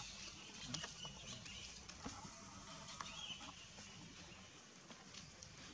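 Light crackles and rustles of dry leaf litter underfoot as a macaque walks, with a couple of faint high chirps.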